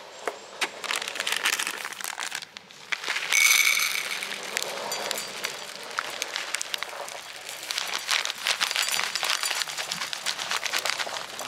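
Dry dog kibble poured from a paper bag into a stainless steel bowl, a dense run of small clicks and rattles as the pellets hit the steel and each other. The loudest moment is a ringing clatter about three seconds in.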